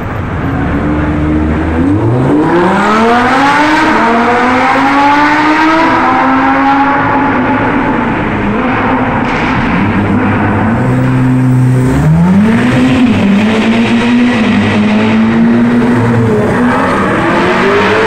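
Supercar engines accelerating hard past the listener: a sharp rise in revs about two seconds in as a Lamborghini Huracán Spyder's V10 pulls away, then a second sharp rise about twelve seconds in as a Ferrari F8's twin-turbo V8 pulls away, each settling into a steady high engine note.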